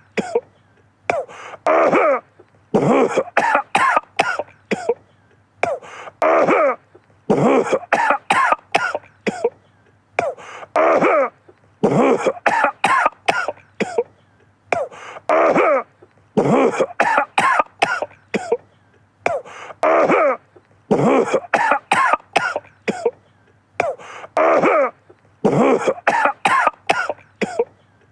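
A man coughing over and over in short fits of several hacking coughs each, with brief pauses between the fits. A faint steady low hum runs underneath.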